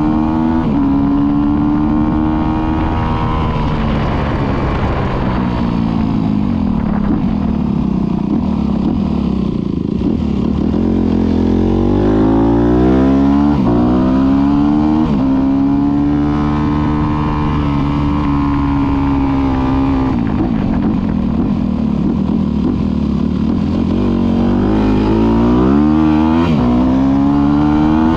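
Motorcycle engine running under way, its pitch rising and falling several times as the throttle is opened and eased off.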